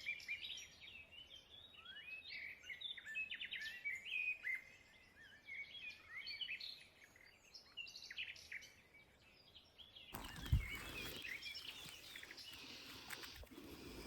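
Small songbirds chirping and singing, many short quick notes. About ten seconds in, rustling starts with one sharp thump, the loudest sound, and the birds carry on under it.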